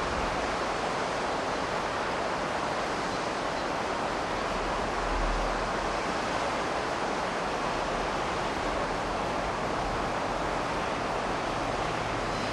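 Steady rush of river water pouring over a low weir, an even hiss-like roar with no distinct strokes.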